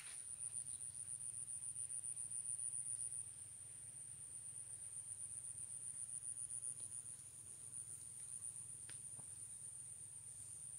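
Insects trilling in the undergrowth: one continuous high-pitched trill with a fast pulse, a little louder for the first three seconds.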